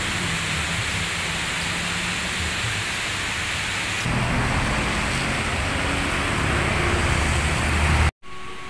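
Steady rain hissing down, with an uneven low rumble beneath it. The sound cuts off suddenly near the end.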